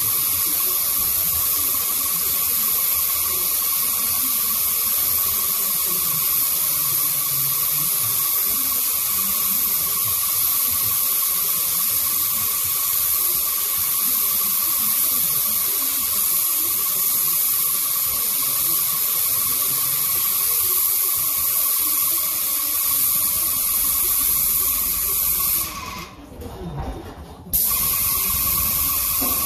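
Airless paint spray gun hissing steadily as it atomises a mist coat of paint under high pressure. The hiss cuts out for about a second and a half near the end, then starts again.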